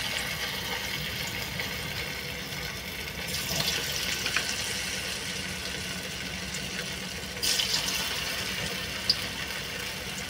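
Marinated meat pieces deep-frying in hot oil in a steel kadhai: a steady sizzle that swells louder twice, about a third of the way in and again past two thirds.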